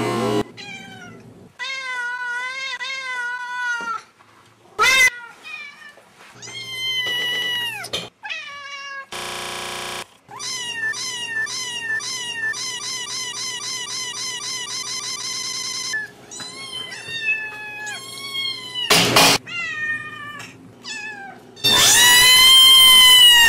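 Kitten meows chopped and re-edited: calls cut short, looped in rapid stutters and replayed at different pitches. A short burst of hiss comes about ten seconds in, and the loudest, densest stretch of meowing comes near the end.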